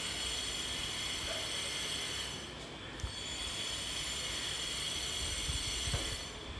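Steady background hiss and hum with a faint high-pitched whine, and a few soft low thumps of footsteps about halfway through and near the end.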